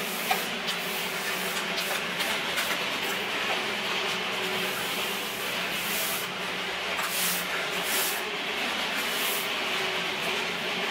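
A steady mechanical hum with hiss, with a few light metallic clicks of a wrench working bolts on an excavator final drive, and short bursts of hiss in the middle.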